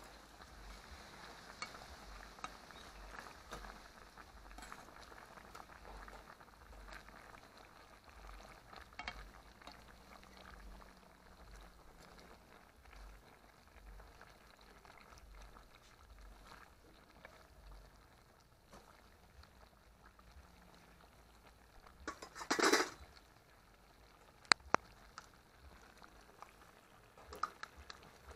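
Fish gravy bubbling in a metal pot, with a metal spoon clinking and scraping against the pot as the sauce is ladled over the fish. A louder clatter comes about two-thirds of the way through, then a single sharp click and a few light clicks near the end.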